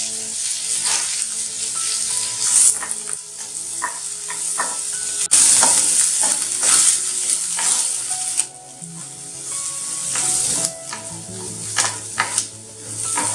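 Chopped onions and garlic sizzling in hot ghee in a pan, stirred with a spatula that scrapes and knocks against the pan.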